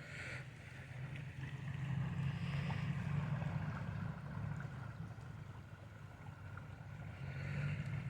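Steady low rush of a creek's flowing water, mixed with wind on the microphone, swelling a little a couple of seconds in.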